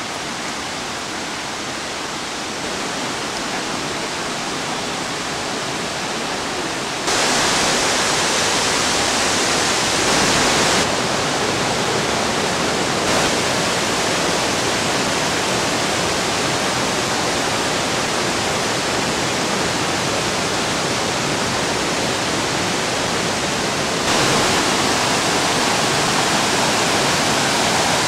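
Steady rush of water from Khlong Lan waterfall and the rocky cascade below it. It gets louder in sudden steps about a quarter of the way in and again near the end.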